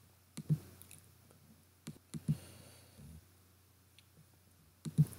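Faint computer mouse clicks in small clusters, about eight in all, with a brief low sound about three seconds in.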